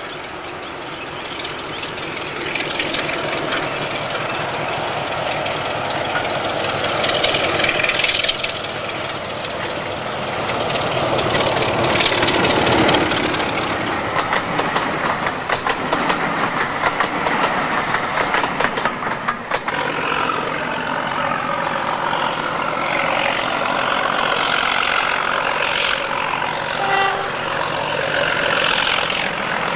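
Diesel locomotive hauling passenger coaches past close by: the engine running under power, with the wheels and coaches rolling over the rails, growing louder as it nears. After a cut about twenty seconds in, another diesel locomotive's engine works steadily as it approaches with its train.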